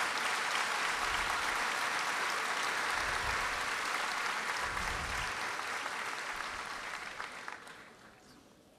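A large crowd applauding steadily, the clapping dying away near the end.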